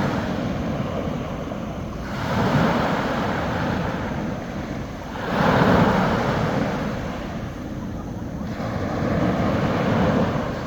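Small sea waves breaking and washing up the shore. They come in three surges a few seconds apart, each swelling and then fading, and the middle one is the loudest.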